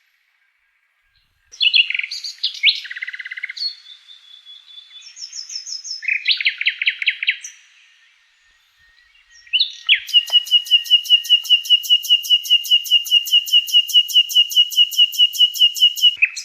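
Nightingale singing. After a short silence comes a run of varied phrases: trills, whistles and quick rattling notes. After another short pause, a long, even series of rapid repeated notes, about six or seven a second, stops abruptly near the end.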